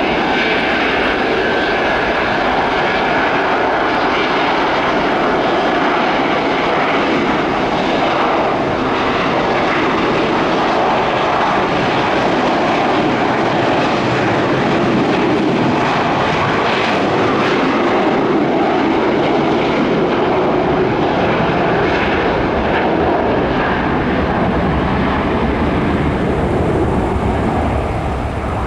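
Loud, steady roar of a McDonnell Douglas MD-88's Pratt & Whitney JT8D-219 turbofan engines at takeoff power, with a faint whine in the first few seconds.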